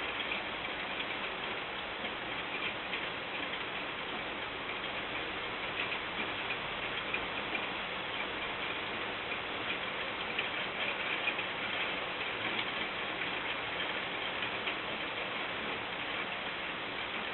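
Steady rain from a departing thunderstorm, with many small drop ticks scattered over a constant hiss.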